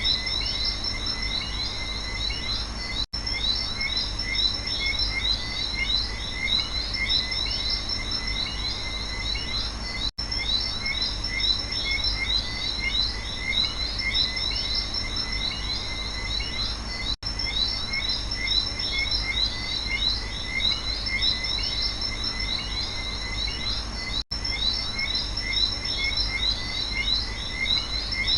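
Night rainforest chorus of frogs and insects: dense, overlapping chirping over a steady high insect trill and a low rumble. The sound cuts out for an instant four times, about every seven seconds, where the recording loops.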